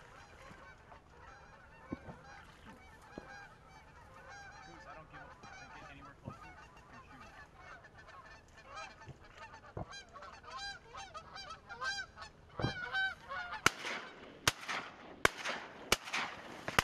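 A large flock of geese flying over, honking. The calls thicken into a steady chorus over the second half. Near the end come several sharp cracks under a second apart, louder than the calls.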